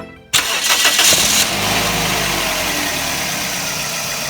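Car engine starting: a sudden loud burst as it fires, settling after about a second into a steady idle.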